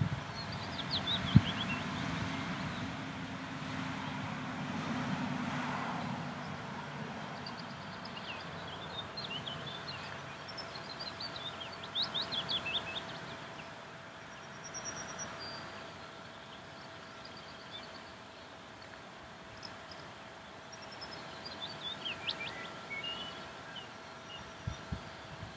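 Outdoor ambience of small birds calling: clusters of quick, high chirps and short trills that come and go. Under them runs a faint steady hum and a low rumble that fades out after about six seconds, with a single sharp knock about a second in.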